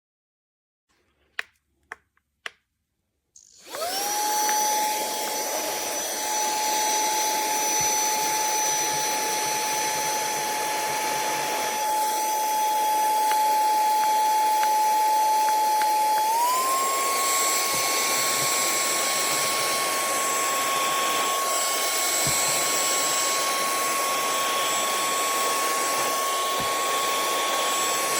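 Three clicks, then a cordless handheld vacuum starts up about three and a half seconds in and runs steadily with a high-pitched motor whine over a rushing hiss of air. About halfway through, the whine steps up in pitch and gets a little louder, as if it has been switched to a higher speed.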